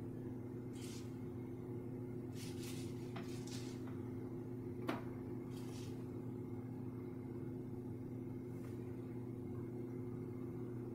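Steady low electrical hum of room tone, with a few soft, brief swishes in the first half and a single light click about five seconds in.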